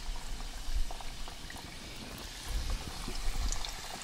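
Breaded chicken pieces deep-frying in a shallow pan of oil at about 330 degrees, bubbling steadily with scattered small pops.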